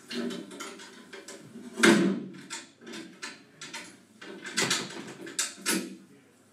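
A run of irregular knocks and clatters, the loudest about two seconds in and a second cluster near the end.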